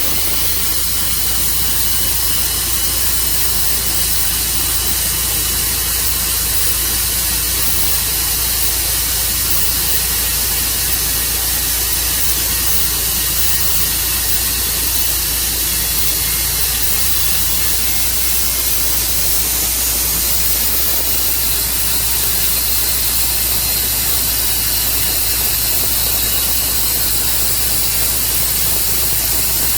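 Tru Cut sawmill running steadily: a constant low engine drone under a loud, even hiss.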